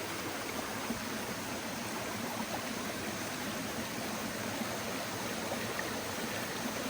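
River water flowing over rocks, a steady even rush with no breaks.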